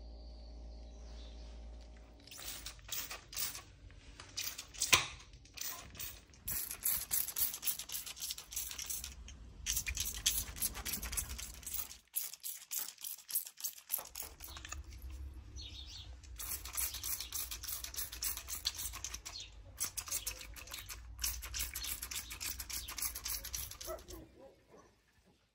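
Plastic trigger spray bottle being pumped over and over, a fast run of sharp clicks and short sprays. It breaks off briefly about halfway, then carries on.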